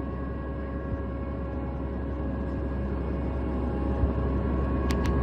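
Combine harvester running steadily, a low rumble with a steady whine over it, growing slowly louder. Two sharp clicks near the end.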